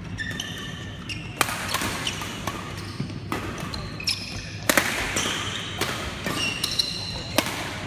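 Badminton rally: rackets strike the shuttlecock with sharp cracks every second or two, with short high squeaks of shoes on the court floor between shots.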